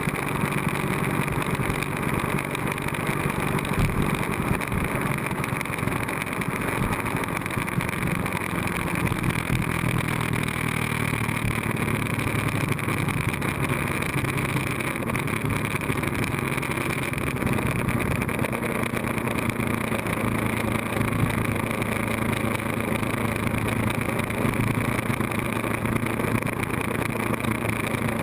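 Ducati 1098S L-twin engine running steadily at road speed, its note shifting only slightly, with wind rushing over the tail-mounted camera.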